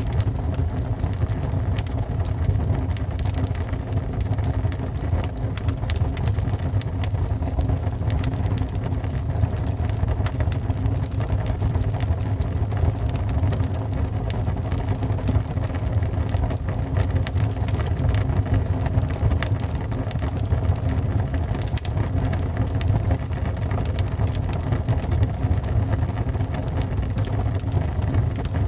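Wood fire burning in a fireplace: a steady low rumble of flames with frequent small crackles and pops from the logs.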